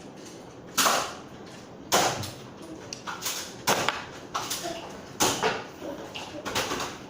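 Nerf blasters firing foam darts: about six sharp snapping shots, roughly a second apart.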